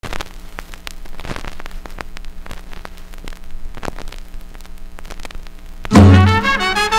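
Vinyl record surface noise from the run-in groove: crackle with scattered sharp pops over a steady low hum. About six seconds in, a salsa recording starts suddenly and loud, with bass and brass.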